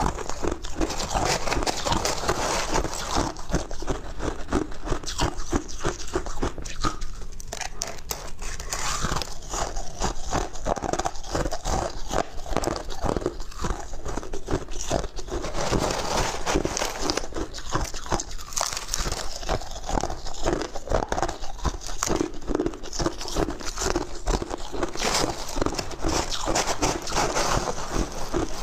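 Crushed ice being bitten and chewed close to a clip-on microphone: a dense, continuous run of sharp crunches and crackles. A metal spoon scoops ice from a plastic tub now and then.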